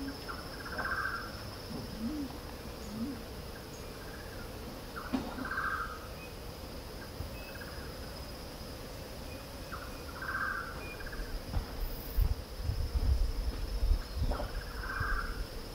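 Outdoor forest ambience: a steady high drone of insects, with a short bird call repeated about every four to five seconds. From about three-quarters of the way in, low rumbling noise hits the microphone and becomes the loudest sound.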